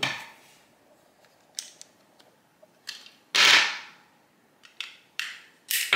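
Small sharp clicks and taps of AAA batteries being pried out of a plastic sensor's battery compartment with a screwdriver and set down on a table, with one louder clatter about three and a half seconds in.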